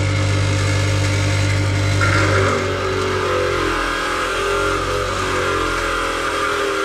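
Bench grinder with a wire wheel running steadily as diesel injector parts are wire brushed against it. A low motor hum weakens and the sound grows brighter about two seconds in.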